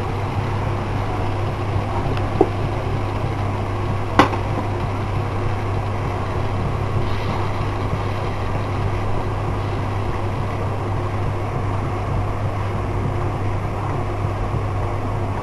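Steady low hum with a hiss over it, even in level throughout, and a spatula knocking against the pan twice, about two and four seconds in.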